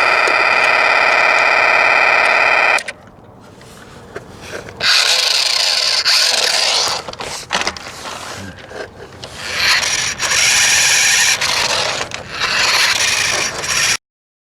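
RadioShack Sound Bat 2 sound-effects toy playing electronic effects through its small speaker. A loud, distorted buzzing tone cuts off about three seconds in, followed by three bursts of harsh, hissing noise effects.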